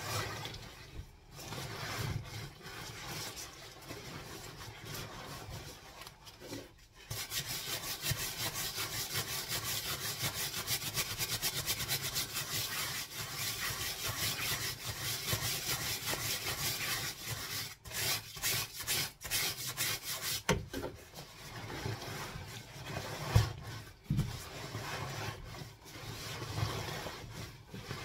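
Wet puffer jacket being scrubbed by hand with a bristle brush in soapy water. Quick, even back-and-forth brush strokes run from about seven seconds in to about seventeen seconds, with irregular rubbing and squeezing of the wet fabric before and after.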